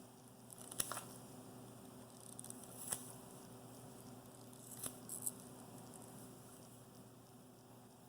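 Faint clicks and light scraping of a network-cable cutter working the insulation sleeve off a spark plug wire: a few short sharp snaps, two about a second in, one near 3 s and a pair near 5 s, over a low steady hum.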